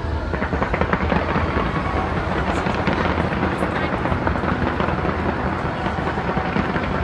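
Fireworks display going off continuously: a dense, unbroken run of overlapping bangs and crackling, many per second.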